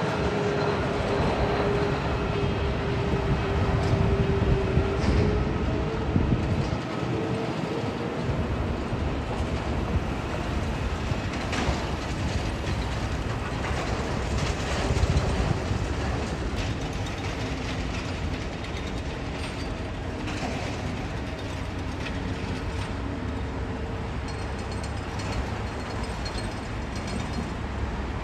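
Steady rumble of a jet airliner, a British Airways Airbus A319, landing and rolling out on the runway, mixed with road traffic passing close by. The sound swells around four to six seconds in and again mid-way.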